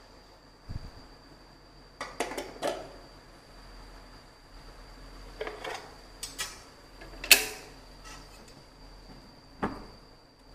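Aluminium stockpot lid and metal utensils clinking and knocking against the pot: a scattered series of short, sharp metallic knocks, the loudest about seven seconds in.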